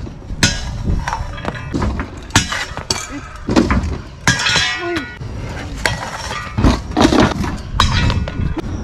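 Stunt scooters landing and grinding on a metal rail and ledge box: a series of sharp metallic clanks, some ringing briefly, over the low rumble of small hard wheels rolling on concrete.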